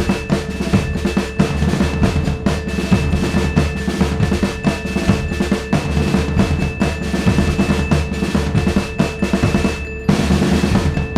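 Background music with a fast drum beat over held tones, briefly dropping out about ten seconds in.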